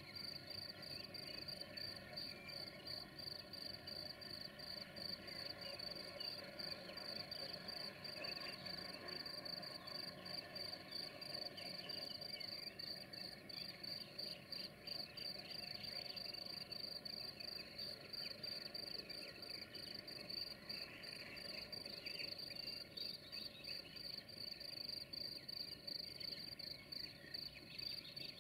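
Crickets chirping in a steady, rapid pulsing trill, with other faint short chirps mixed in through the middle.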